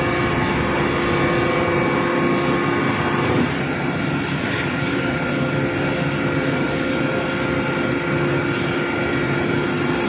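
HBL630 double-cylinder horizontal bagging baler running: a steady, loud machine hum from its motors and hydraulic unit, with several constant whining tones over it.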